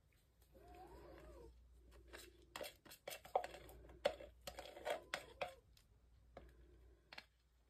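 A cat meows once, about half a second in. Then comes a run of sharp clicks and taps from a stick scraping and knocking inside a plastic paint cup.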